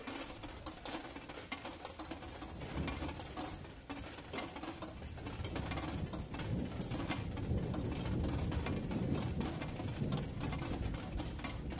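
Rain pattering in irregular ticks, with a low, rolling rumble of distant thunder that swells about halfway through and carries on.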